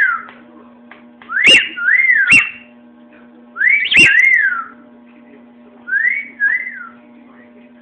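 Whistling in three phrases, each a pair of rising-then-falling glides. The first two phrases open with sharp clicks.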